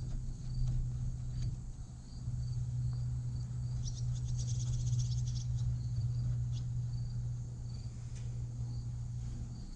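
Crickets chirping in an even rhythm, about twice a second, with a louder insect trill about four seconds in, over a steady low hum and a few faint ticks.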